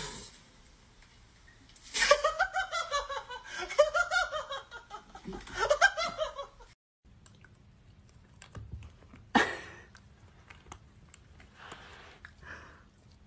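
A person laughing in quick high-pitched giggling bursts for about five seconds, then it cuts off. Afterwards there are only faint clicks and one short sharp noise.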